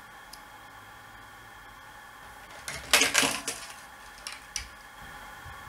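A brief metallic clatter about three seconds in, then a couple of light clicks: a small precision screwdriver and small parts being handled against a plastic quadcopter frame on a wooden table.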